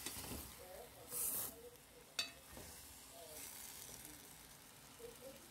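Boiled dasheen, eddoes and sweet potato with blended seasoning sizzling faintly in hot oil in a pot while a spoon stirs them. There is a short louder scrape about a second in and a single sharp click of the spoon just after two seconds.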